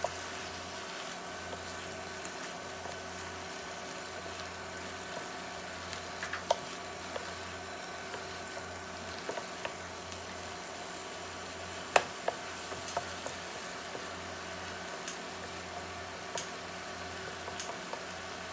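Broccoli florets and chopped garlic sizzling in a stainless steel frying pan as a wooden spatula stirs them, with a few sharp clicks of the spatula against the pan, the loudest about twelve seconds in. A steady low hum runs underneath and drops out briefly now and then.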